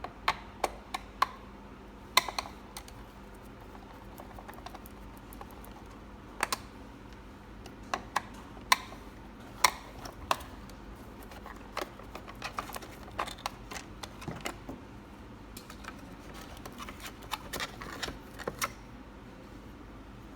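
Irregular sharp clicks and taps of a robot vacuum cleaner's hard parts being handled, some in quick pairs, loudest in the first half, over a faint steady hum.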